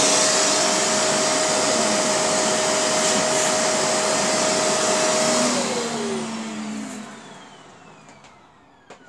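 Shark Navigator upright vacuum cleaner running with a steady motor whine, then switched off about five and a half seconds in, its motor winding down with a falling pitch until it fades out.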